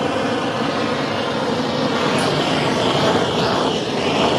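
Gas torch burning with a steady hiss as its flame singes shed rabbit fluff off a wire-mesh cage and its metal floor tray.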